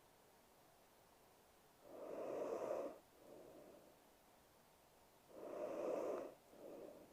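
A sleeping woman breathing heavily and noisily, a louder breath followed by a softer one, the pair coming twice about three and a half seconds apart.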